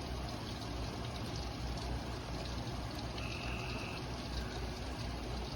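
Steady hiss of rain falling during a thunderstorm, over a low hum, with a short high beep about three seconds in.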